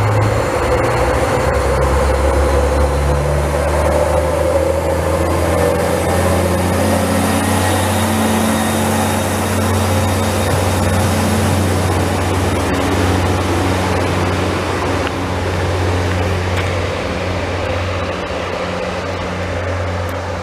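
NI Railways diesel multiple unit's underfloor engines running close by, the engine note climbing over the first several seconds and then holding steady.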